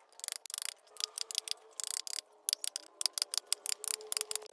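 Hand carving tool cutting and scraping wood in quick, short, irregular strokes, several a second.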